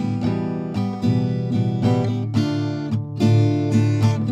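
Background music played on acoustic guitar, a quick run of plucked and strummed notes.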